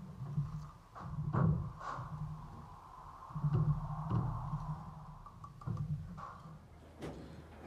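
Steel bricklaying trowel tapping fresh bricks down into their mortar bed: a series of sharp knocks, about eight, irregularly spaced.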